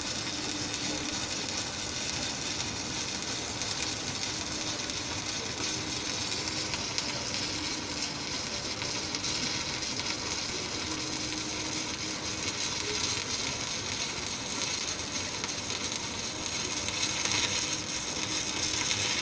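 Shielded metal arc (stick) welding with a KONY 400A IGBT inverter welder burning a 3.2 mm L-55 electrode: the arc gives a steady, even hiss without a break for the whole run. The evenness is the sign of a very stable welding current.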